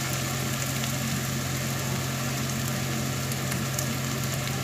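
Sliced onions sizzling gently in oil in a non-stick wok on low heat, a fine steady crackle with a few faint ticks, over a constant low hum.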